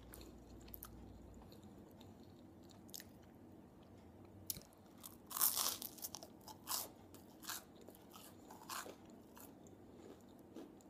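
A bite into a slice of toast about halfway through, with crisp crunching, then a few more crunches as it is chewed.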